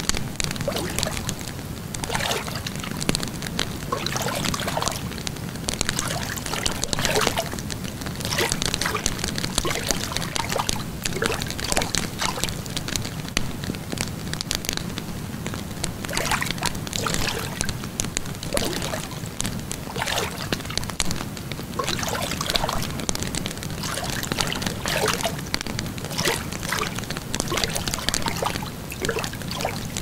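Ambient bonfire and lakeshore sound: a wood fire crackling and popping irregularly over a steady low rush, mixed with water lapping.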